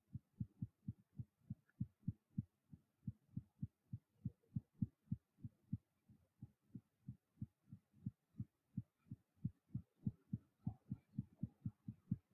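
Faint, even run of short low thumps, about four a second, from a computer mouse's scroll wheel being turned notch by notch.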